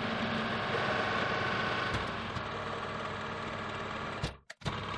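Metal lathe running while a carbide threading insert single-point cuts a thread into a steel rod: a steady machine hum with the cutting noise. About four seconds in it breaks off with a click, goes briefly silent and comes back with another click.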